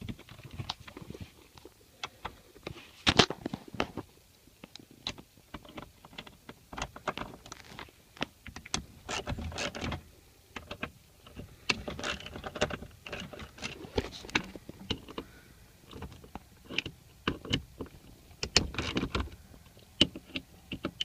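A car seat being worked loose and pulled out by hand: irregular clicks, knocks and rustling, with a louder knock about three seconds in.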